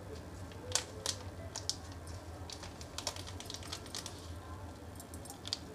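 Plastic spice sachet crinkling as masala powder is shaken and tapped out of it: scattered light crackles and ticks at irregular intervals.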